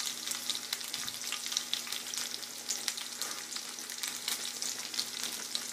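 Food sautéing in a hot pan: a steady sizzle with many small crackles and pops.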